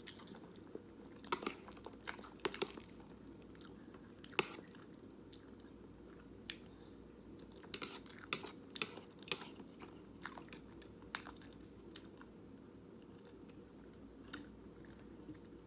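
A person chewing a mouthful of noodles close to the microphone: quiet, irregular wet mouth clicks, with a few sharper ones scattered throughout.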